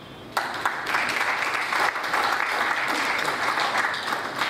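Audience applauding, breaking out a moment after the start and carrying on steadily.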